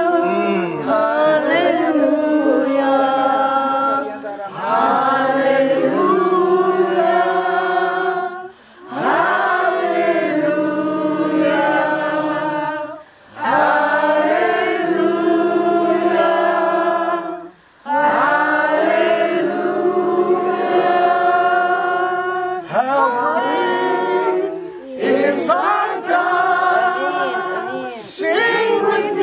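A group of men and women singing together unaccompanied, in long held phrases with a brief breath between them about every four to five seconds.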